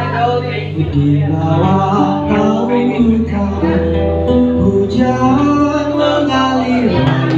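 Live acoustic band music: a strummed acoustic guitar with a male voice singing and a violin playing held notes.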